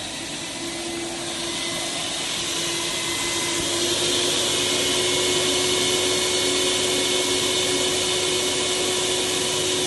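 Typical shop vacuum switched on and running, its motor whine and air rush building for the first few seconds and then holding steady. It is drawing suction on a water-gauge meter for a suction test.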